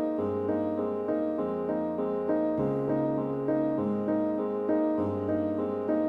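Background music: a soft piano or electric-piano melody of evenly paced repeating notes over sustained bass notes.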